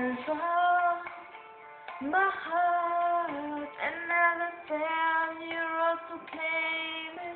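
A female voice singing a slow pop ballad in several phrases of long held notes with short breaks between them, over a quieter instrumental backing track.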